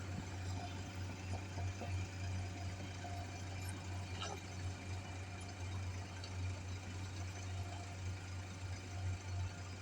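Excavator's diesel engine running steadily: a continuous low hum with no change in speed.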